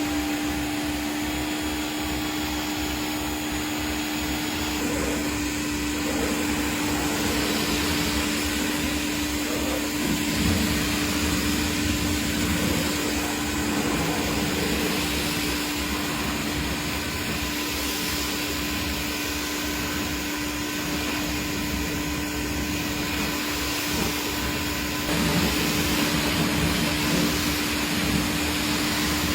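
A motor-driven car-cleaning machine running steadily: a constant hum under an even hiss that starts abruptly and does not stop.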